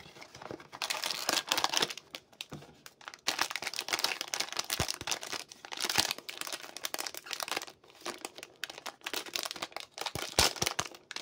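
Crinkling and tearing of a silvery foil blind-box pouch being pulled from its cardboard box and opened by hand, in irregular bursts with light cardboard rustles and clicks.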